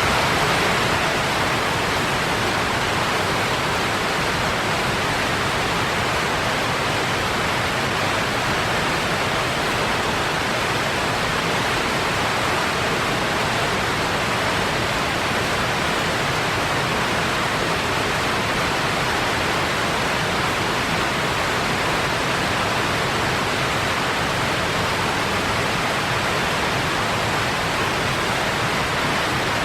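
Wheat grain pouring into a silo: a steady, even rushing hiss of flowing kernels that holds constant throughout.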